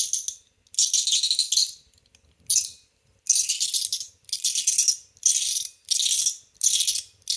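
Polished zirconium and polished stainless steel CHENYU SYNTONY fidget toys being worked, giving a bright, gritty metallic rattle in short bursts about once a second.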